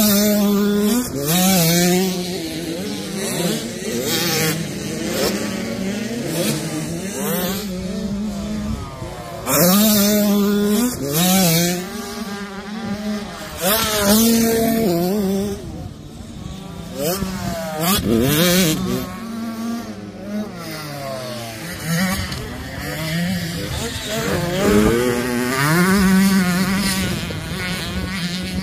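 KTM 65 SX two-stroke youth motocross bikes being ridden hard around a dirt track, engines revving up in repeated rising runs that break off at each gear change or jump, then pick up again. They are loudest as the bikes pass close by.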